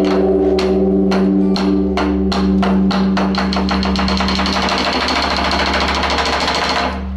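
Sticks beating the large Buddhist temple drum (beopgo), starting at about two strokes a second and speeding up into a fast, dense roll that stops abruptly near the end. A steady low hum, the great bronze bell still ringing, lies underneath.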